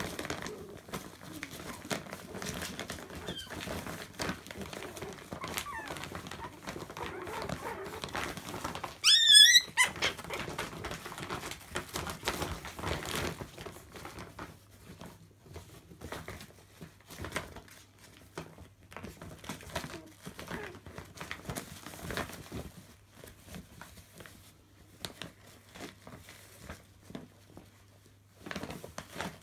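Chihuahua puppies scuffling in a plastic bag of clothes: crinkling plastic and rustling fabric throughout, with one loud, brief, high-pitched puppy yelp about nine seconds in.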